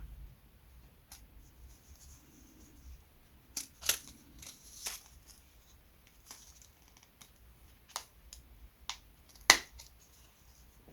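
Scattered light clicks and taps of small wooden parts and tools being handled on a workbench, the sharpest about four and nine and a half seconds in.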